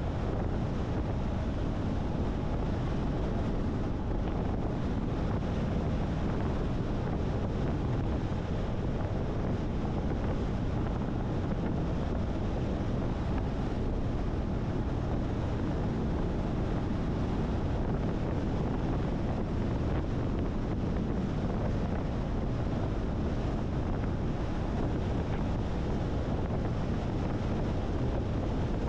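Steady road and wind noise from a moving car: an even, low rumble with no engine note, speech or music.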